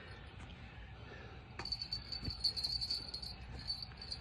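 Crickets chirping in a steady high pulsing trill, with a louder stretch of rapid clicking in the middle.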